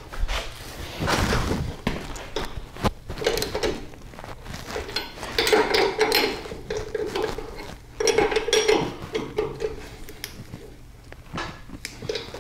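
Metal hand tools clicking and clinking in irregular bursts while the bolts on a VW swing-axle rear spring plate are snugged up, not yet to final torque.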